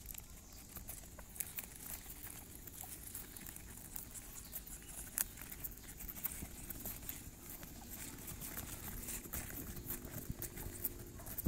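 Small, irregular clicks and rustles from a doe rabbit and her five-day-old kits as the kits nurse and squirm against her while she eats leaves.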